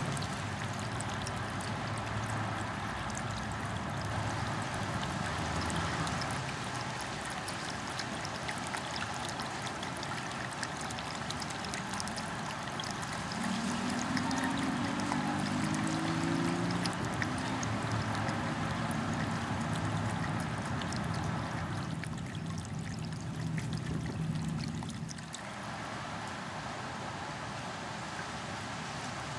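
Small ceramic bubbler fountain trickling and splashing steadily. Through the middle a low engine hum passes in the background, rising in pitch and fading out about four-fifths of the way through.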